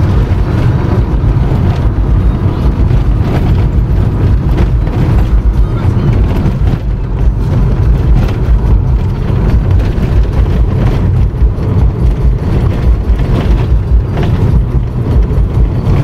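Car cabin noise while driving on a highway: a steady low rumble of tyres, engine and wind.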